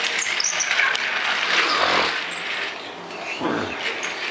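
Small battery motor of a toy James train engine whirring as it runs on plastic track, with a sweep falling in pitch about three and a half seconds in.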